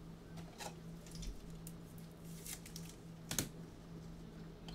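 Faint rustling and sliding of trading cards handled with gloved hands, with one sharper click about three and a half seconds in.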